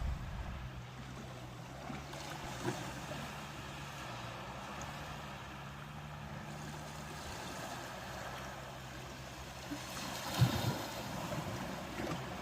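Ocean surf washing steadily, with a low, steady hum through the first half and wind buffeting the microphone about ten seconds in.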